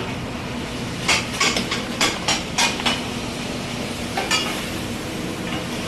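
Metal serving utensils clinking and knocking against metal food pans, a quick run of clinks followed by a single one, over the steady hum of kitchen equipment.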